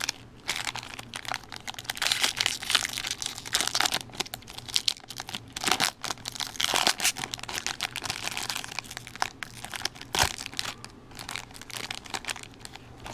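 Foil trading-card pack wrapper being torn open and peeled back by hand: a dense crinkling and crackling full of sharp crinkles, dying down near the end.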